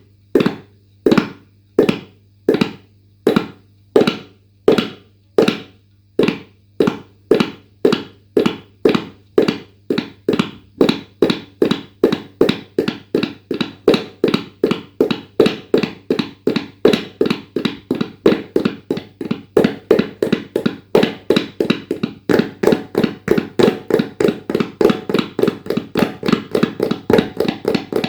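Tabla played in an even, galloping rhythm imitating a running horse's hoofbeats. The strokes start slowly and gradually speed up.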